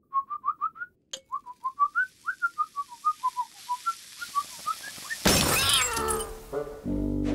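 A cartoon character whistling a short, jaunty tune of quick notes that rise and fall, then an oversized glass thermometer bursting with a sudden loud shatter about five seconds in, followed by tinkling glass.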